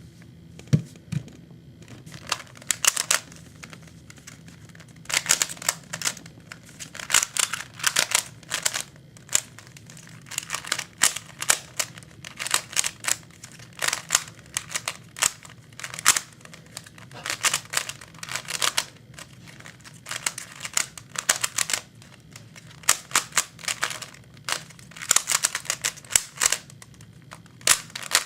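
A Rubik's cube being turned fast by hand during a timed solve: rapid plastic clicking and clacking of the layers in bursts of a second or two, broken by short pauses.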